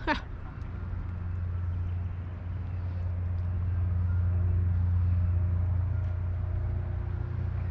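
A steady low engine hum that swells over several seconds and then eases off, as of a motor passing by. It opens with a brief whistle that falls steeply in pitch.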